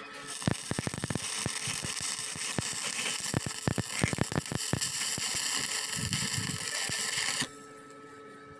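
Stick-welding arc crackling and sizzling while a bead is run up a joint on thin square steel tube. It strikes just after the start and cuts off sharply about seven and a half seconds in as the arc is broken.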